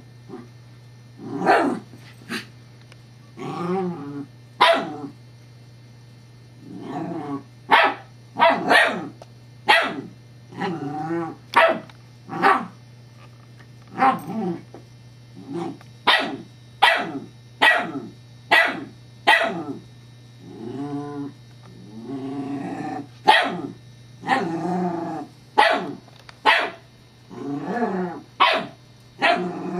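Scottish terrier puppy barking repeatedly at a rolling teething toy, about one sharp bark a second with a few longer growling barks mixed in.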